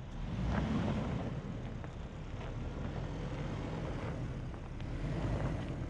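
Midsize pickup truck's engine running under load as it crawls up a steep dirt hill in four-wheel-drive low with the rear differential locked.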